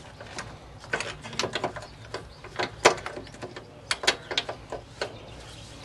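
Irregular metallic clicks and clacks of a spark plug socket and its extension being separated and worked out of the spark plug well, with the sharpest click about three seconds in.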